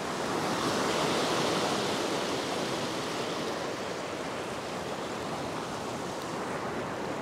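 Ocean surf breaking and washing against a rock ledge. The rush swells about a second in as a wave breaks, then settles to a steady wash.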